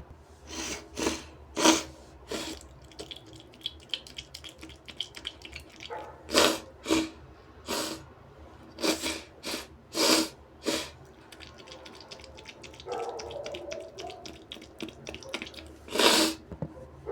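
A man's nose sounds: about a dozen short, sharp nasal bursts of blowing, sniffing and sneezing, with wet crackling between them and a loud burst near the end.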